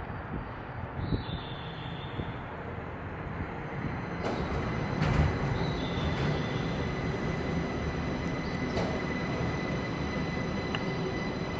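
Linimo HSST maglev train pulling into the station, a steady rushing hum that grows louder as it comes alongside. A thin, steady high whine joins about five seconds in, with a few sharp clicks.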